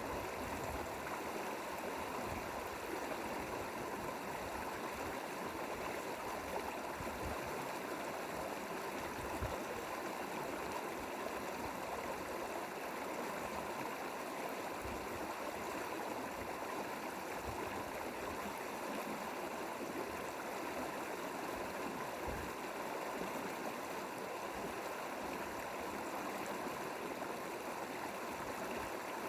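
Mountain valley stream flowing steadily, an even rush of running water.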